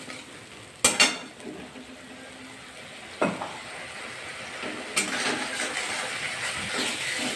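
Metal spatula stirring and scraping onion and spice masala in a metal kadai, with a soft sizzle that grows louder in the second half as the masala is fried down (kashano). Two sharp clanks of the spatula on the pan about a second in are the loudest sounds, with a few lighter knocks after.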